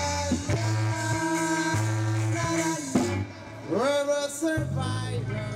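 A live rock band playing: electric guitars, bass and drums, with a voice singing a few gliding phrases about two-thirds of the way in. The music begins to fade near the end.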